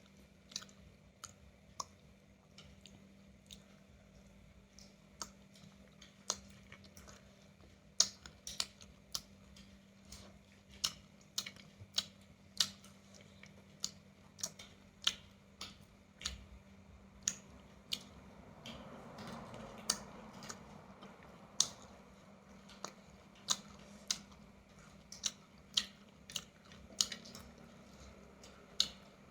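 Mouth sounds of someone eating roasted chicken close to the microphone: irregular sharp crunches and clicks of biting and chewing, about one or two a second, over a faint steady hum.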